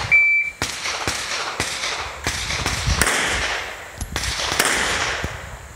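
A shot timer beeps once, then a Springfield XD(M) 5.25 9mm pistol fires a string of shots, about two a second.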